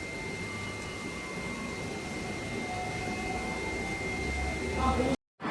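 Automatic pipe TIG welding equipment running: a steady hum and hiss with a thin, high, constant whine, a low rumble swelling about four seconds in, then the sound cuts off abruptly just before the end.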